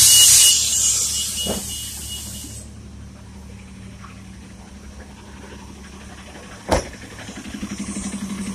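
MARTA New Flyer D40LF diesel bus: a loud air hiss from its pneumatic system, with a thin high beep-like tone in it, dies away over the first two seconds or so while the engine idles with a low steady hum. A single sharp knock comes about two-thirds of the way in, and near the end the engine note swells and pulses.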